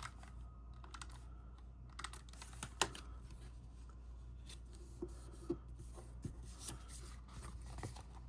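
Faint, scattered light clicks and taps of cardstock pieces being handled and pressed onto a paper pop-up card, over a steady low hum.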